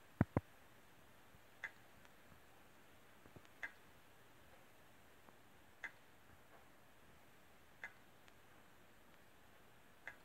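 Faulty 2.5-inch hard drive in a USB external case clicking faintly and regularly, about once every two seconds: it only clicks and gives the computer no response. A louder double knock comes just after the start.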